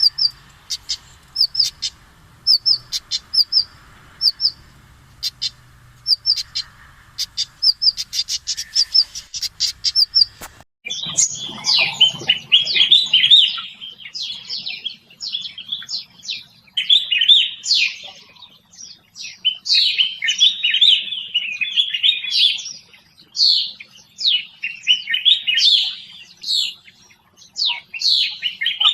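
Small songbirds chirping: short, high chirps repeated in quick runs. About ten seconds in, the sound cuts to a different recording of a bird singing a rapid, jumbled warbling song in long phrases.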